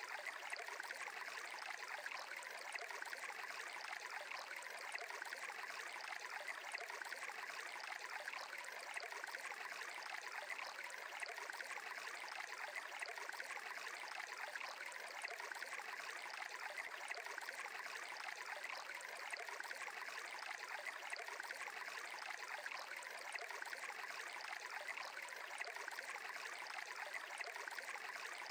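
Faint, steady running water, an even rush like a flowing stream, with no pauses.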